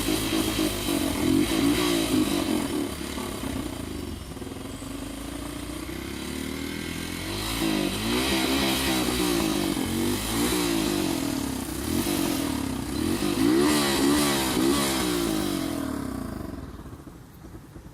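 153cc motorcycle engine running and revving up and down repeatedly, fading away near the end.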